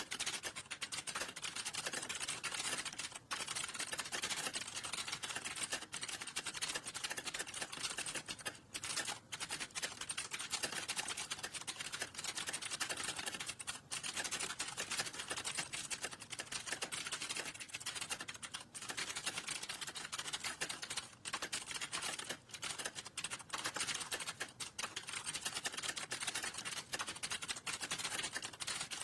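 Fast, continuous typing on a computer keyboard: a dense patter of key clicks with a few short pauses.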